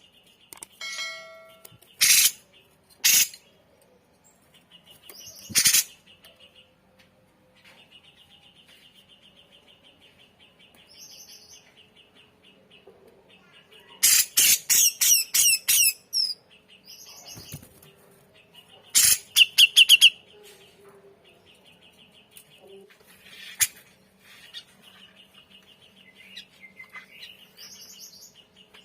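Grey-cheeked bulbul (cucak jenggot) singing: loud, harsh chattering calls come in short bursts, with a fast run of them about halfway through and again near two-thirds of the way. Between them are quieter trains of rapidly repeated notes and some high whistled phrases, the mimicked fills (isian) that keepers prize in this bird.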